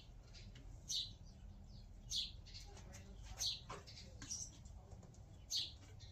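Small birds chirping, a short high chirp about every second over a faint steady background hum.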